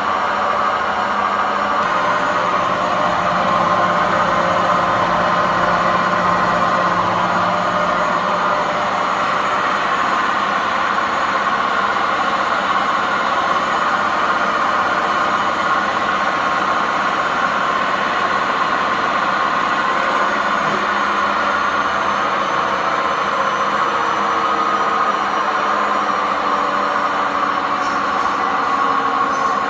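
Old washing machine on its spin cycle, making a loud, steady noise with a whine in it. The title puts the noise down to worn-out drum bearings and poor suspension.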